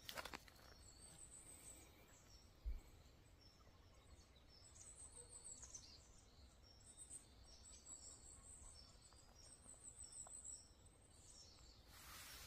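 Faint, high-pitched chirps of small birds calling again and again over quiet forest background. Dry leaves rustle briefly near the start and again near the end.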